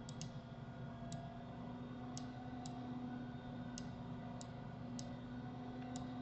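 Computer mouse clicking: about nine sharp, single clicks at irregular intervals, over a faint steady hum.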